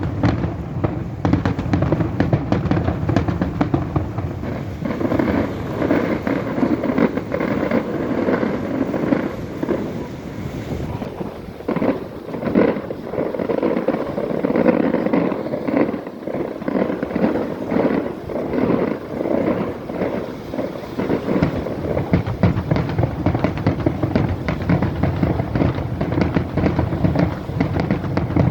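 Fireworks display: a dense, unbroken barrage of bangs and crackling bursts, one after another without a pause.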